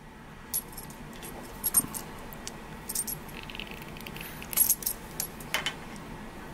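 Light metallic clicks and ticks from diagonal cutters and a twist-lock plug being handled, with one sharper snip a little past halfway as the cutters work the green ground wire.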